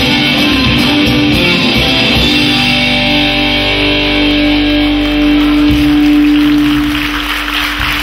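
Live rock band with guitars, bass and drums ending a song on a long held chord, with audience applause rising near the end.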